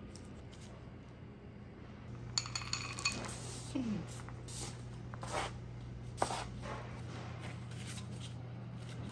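Bench scraper knocking and scraping on a wooden board while scone dough is worked, a string of short clicks and scrapes starting about two seconds in, over a steady low hum.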